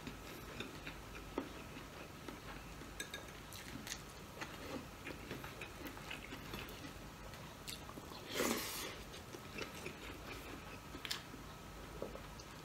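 A person chewing and eating by hand: soft mouth sounds and small clicks, with one louder, noisy sound a little past the middle.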